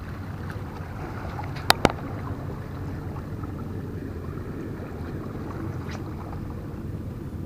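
Steady low rumble of wind and sea water lapping against seawall rocks, with two sharp clicks close together about two seconds in.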